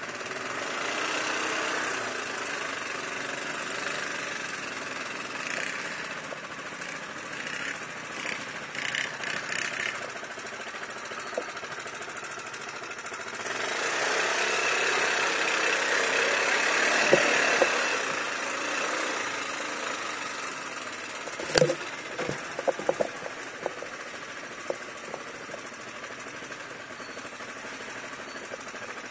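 ATV engine running on a rough dirt trail, growing louder for a few seconds in the middle. About two-thirds of the way through come a run of sharp knocks and rattles as the machine jolts over the rough ground.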